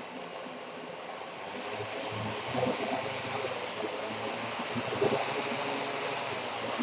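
Homemade quadcopter's four brushless motors and propellers spinning on the ground at part throttle, a steady whir that grows louder about two seconds in as the throttle comes up.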